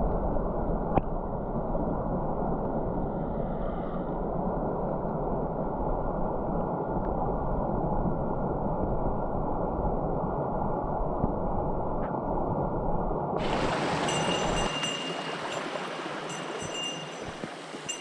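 Rushing mountain-stream water, heard muffled with its higher sounds cut off until about 13 seconds in, when it opens up clearer with faint high-pitched tones above it.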